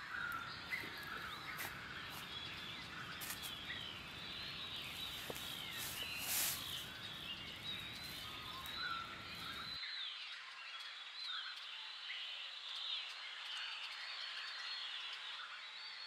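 Woodland ambience of many small birds chirping and calling in short, overlapping notes. A low hiss underneath cuts off suddenly about ten seconds in. There is a brief burst of noise a little past six seconds.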